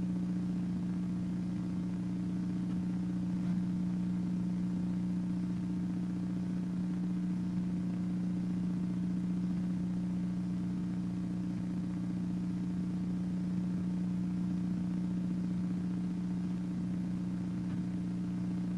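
Steady low electrical hum from the chamber's sound system, unchanging throughout.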